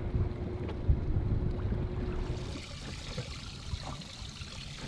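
Water lapping and splashing against a small fishing boat's hull, with wind buffeting the microphone in uneven gusts.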